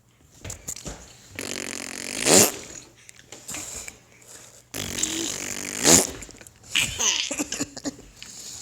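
Two fart noises, each buzzing for about a second and ending in a louder burst. The first comes about a second and a half in, the second about five seconds in, and shorter, fainter sounds follow.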